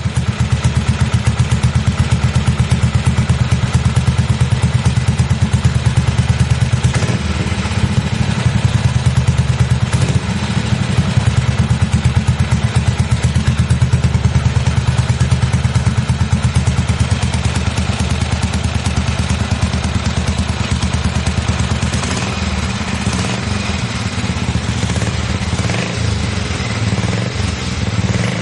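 Motorcycle engine running steadily and loudly, a fast even beat of firing pulses.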